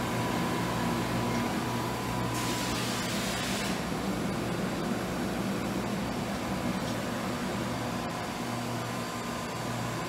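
Steady low machinery hum of a shop, with a brief hiss about two and a half seconds in.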